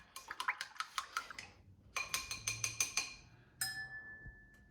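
A utensil beating egg and water in a bowl, with two runs of rapid clinks against the bowl. Near the end comes one clink that rings on as it fades.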